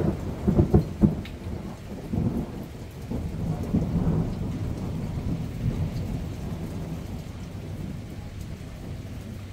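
Thunder cracking sharply about a second in, then rumbling and dying away over several seconds, over steady summer rain.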